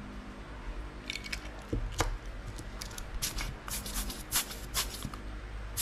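Small sharp clicks and taps of a wristwatch and small watch-repair hand tools being handled on a work mat, a scattered run that thickens in the second half.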